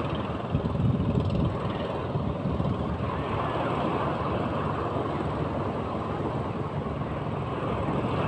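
Big sea waves breaking and washing in: a steady rushing noise with a low rumble.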